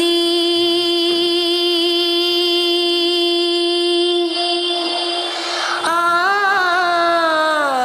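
A boy singing solo into a microphone with no accompaniment: he holds one long steady note for about four seconds, then sings a wavering, ornamented phrase that slides down in pitch near the end.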